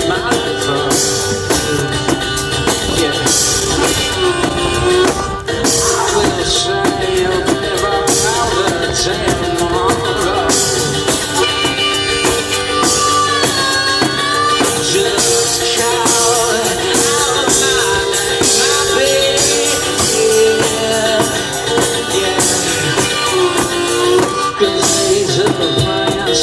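A one-man band playing a rock song live: a drum kit keeping a steady beat under guitar, with a singing voice over it.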